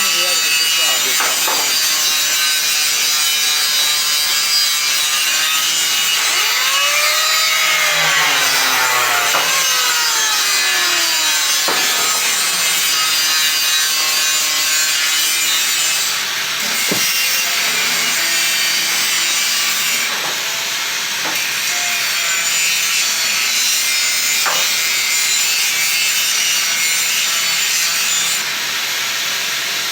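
Abrasive power tool working steel: a steady, harsh hiss with a whine that bends up and down in pitch as the tool bites.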